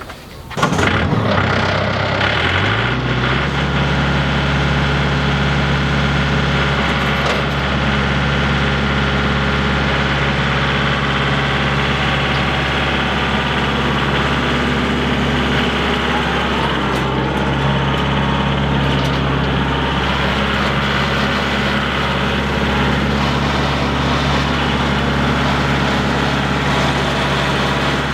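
An engine starts about half a second in, its pitch climbing for a couple of seconds before it settles, then runs steadily at an even speed.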